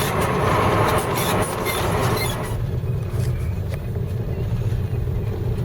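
Vehicle engine and road noise heard from inside the cab while driving. A steady low engine drone runs throughout, with a dense hiss and rattle over it that drops away about two and a half seconds in.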